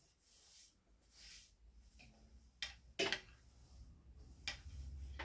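Quiet handling of a wooden hiking stick and a wood-burning iron in the lap: soft rustles, then a few light knocks and taps as the stick and tool are shifted, with a low hum coming up near the end.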